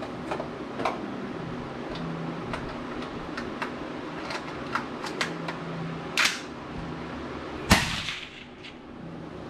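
A single loud rifle shot about three-quarters of the way through, with a short echo after it. Faint scattered pops and clicks come and go before it.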